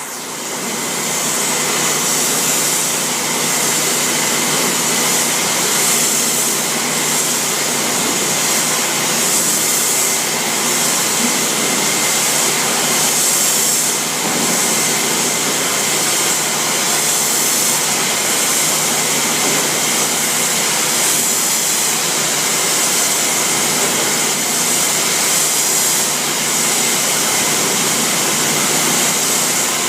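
Steady, loud rushing noise of machinery running, without rhythm or pitch change.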